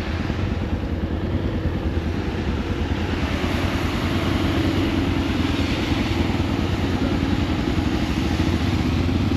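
Motorcycle engine running steadily under way, over a continuous hiss of wind and road noise; it grows a little louder about three seconds in.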